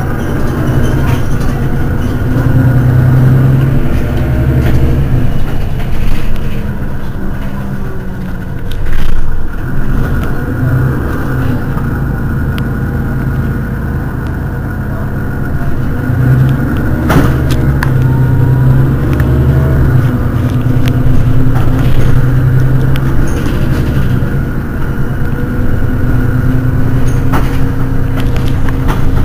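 Mercedes-Benz Citaro city bus engine idling at a standstill, a steady low hum that swells louder a couple of times, with a few brief knocks.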